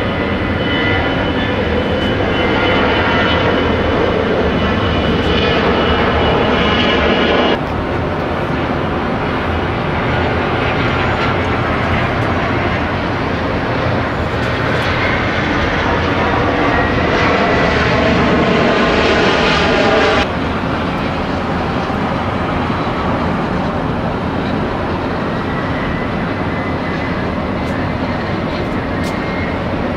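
Jet airliner engines running at high power on the runway: a loud, dense rush with a high whine, growing louder. It breaks off abruptly twice as one aircraft is cut to the next.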